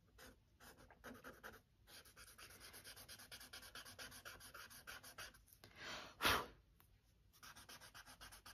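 Faint, quick back-and-forth scratching of a pointed drawing tool rubbing charcoal into sketchbook paper to blend shading, several strokes a second. A short, louder breathy puff comes about six seconds in, then a brief pause before the strokes resume.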